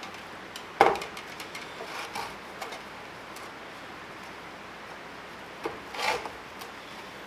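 Small clicks and rubbing of parts being handled in the wire-feed compartment of a Millermatic 251 MIG welder during a drive-roller and wire-spool change. A sharp click about a second in, and a short rattle about six seconds in.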